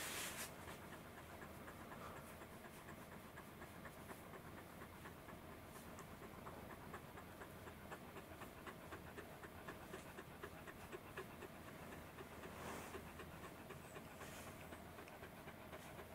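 Long-coated Welsh corgi panting quickly and steadily, faint, a sign of the dog feeling hot in its heavy coat. A few soft brushing swells break in near the start and about two-thirds of the way through.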